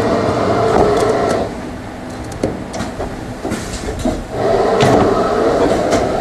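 Stator coil-inserting machine running as it pushes copper windings up into the stator slots: a steady motor hum with rattling and clicks. It quietens for a few seconds in the middle and picks up again near the end.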